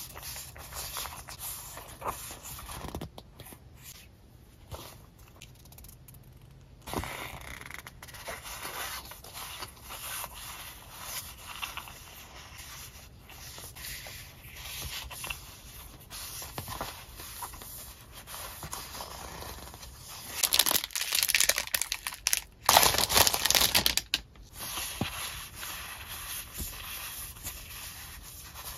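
Paper sticker sheets being shuffled and fanned out by hand: crisp paper rustling and sliding, with two louder bursts of rustling about two-thirds of the way through.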